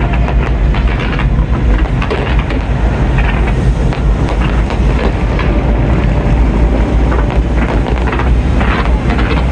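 New Year's fireworks display going off in a dense barrage: many rapid crackles and bangs over a continuous low booming rumble.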